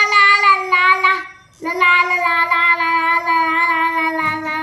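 A young child singing long held notes without words: the first note stops about a second in, and after a short breath a second note starts and is held steadily to the end.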